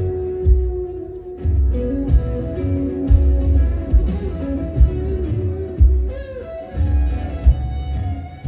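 Rock band playing live over a concert PA: a guitar carrying a gliding melody over heavy bass and a steady kick-drum beat.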